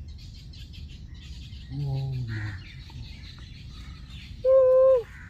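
Small birds chirping continuously over a low background rumble. About two seconds in there is a short pitched sound falling in pitch, and near the end one loud steady tone lasting about half a second.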